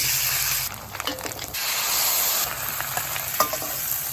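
Noodles frying in hot oil in a wok: a loud, dense sizzle that dips briefly about a second in and swells again, with a few light clicks from the stirring.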